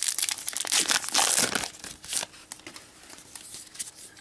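The foil wrapper of a Magic 2012 booster pack is torn open and crinkled in the hands, loud and crackling for about the first second and a half. After that come quieter rustles and light clicks as the cards are handled.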